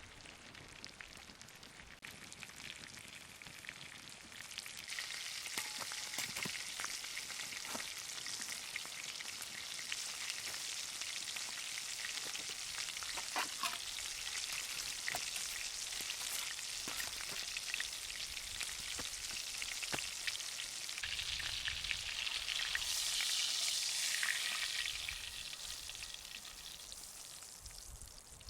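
T-bone steak frying over a campfire: a steady sizzle dotted with sharp pops and crackles. It swells about five seconds in, is loudest a few seconds before the end, then dies down.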